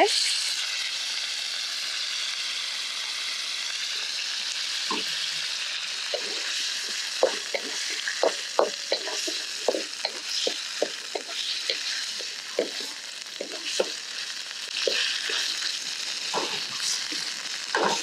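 Chicken frying in hot oil in a pan over a raised flame, a steady sizzle. From about five seconds in, a utensil taps and scrapes against the pan many times as the chicken is stirred.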